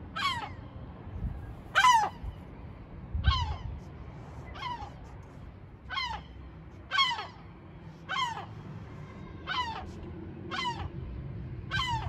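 Gull giving a series of about ten short, harsh calls, each one falling sharply in pitch, roughly one call a second: the alarm calling of a gull guarding its nest.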